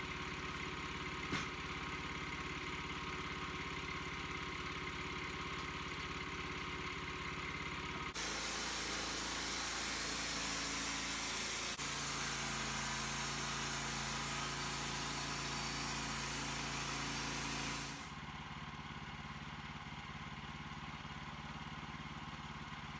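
Wood-Mizer portable band sawmill's gas engine running steadily. About eight seconds in, the band blade starts sawing through a Douglas fir log and a loud hiss of cutting joins the engine; it stops about ten seconds later, leaving the engine running alone.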